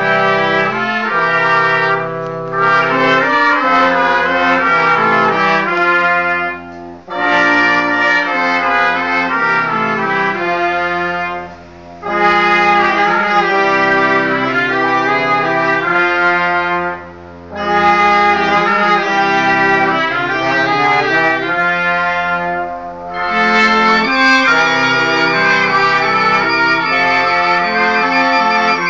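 Small street band of trombone, trumpets, saxophone, tuba and clarinet playing a Christmas tune together, in phrases of a few seconds separated by short breaks.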